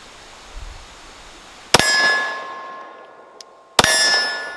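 Two 9mm pistol shots from a Glock P80, about two seconds apart, each hitting a steel target plate that rings out clearly and dies away slowly.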